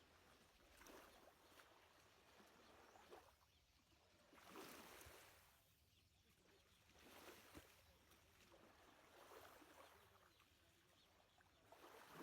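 Near silence with faint lake water lapping, soft washes that swell and fade every two to three seconds.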